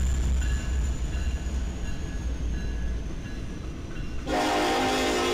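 Diesel freight locomotives rumbling past, the deep engine sound fading as the flatcars roll by. About four seconds in, a train horn starts suddenly and holds a steady, loud chord.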